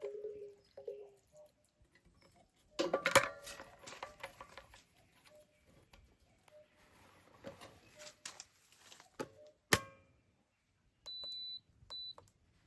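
Two short mid-pitched tones at the start, a clatter of knocks about three seconds in and a sharp click near ten seconds, then two short high electronic beeps near the end.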